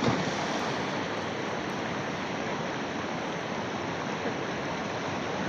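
Fast-flowing river water rushing steadily, pouring over a low dam into a deeper pool.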